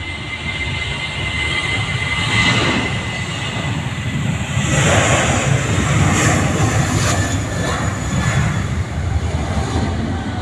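Boeing 737-800's twin CFM56-7B turbofan engines at takeoff thrust during the takeoff roll: a loud jet roar that builds and is loudest as the aircraft passes, about five to seven seconds in. A steady high whine sits over the roar for the first few seconds.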